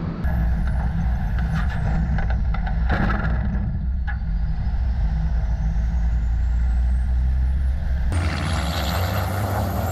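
Race truck engine heard from an onboard camera: a steady low drone, with a thin high whine that slides down and then back up. The sound changes abruptly about eight seconds in.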